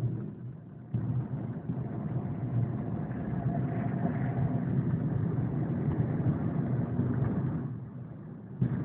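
Engine and road noise of a car driving slowly, heard from inside the car. It jumps up sharply about a second in, holds steady, and drops back near the end.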